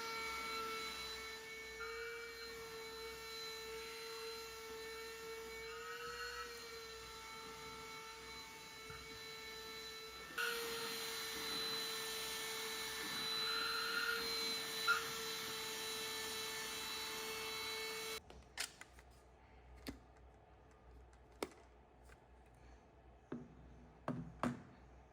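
Small high-speed electric motor running with a steady whine, which cuts off suddenly about 18 seconds in; after it, a few light clicks and knocks.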